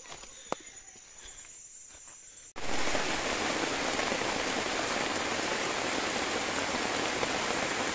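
Faint steady high insect drone, then about two and a half seconds in heavy rain comes in suddenly and runs on as an even, loud hiss of rain falling on the forest foliage.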